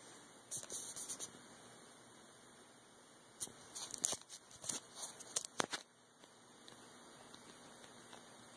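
Handling noise from the recording device being moved: a short burst of clicking and scraping about half a second in, then a longer, louder run of sharp clicks and scrapes between about three and a half and six seconds, over a steady faint electrical hiss and hum.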